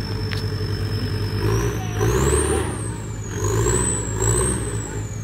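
Off-road vehicle's engine revving in two surges as it works through the course, with a thin high whine that rises and falls over the rumble.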